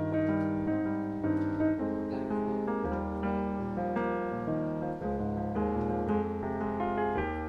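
Improvised keyboard music: held chords over low bass notes, changing about every second, with no drums standing out.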